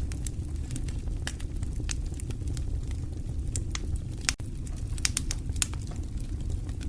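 Wood fire burning in a fireplace: a steady low rumble of flames with frequent sharp, irregular crackles and pops. There is a momentary break in the sound a little past four seconds in.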